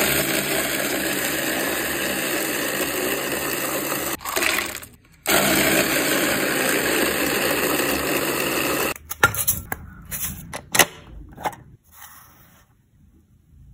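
Electric ice shaver's motor running as it shaves ice, stopping briefly about four seconds in and running again until about nine seconds in. Then a handful of separate knocks as the metal bowl of shaved ice is tipped out into a glass bowl.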